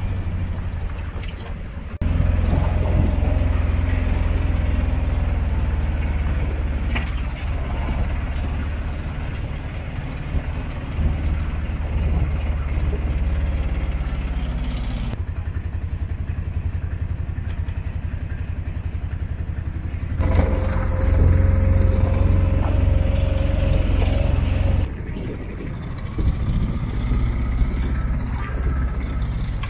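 Tuk-tuk engine running during a ride, with a steady low rumble and street noise; the sound jumps abruptly several times.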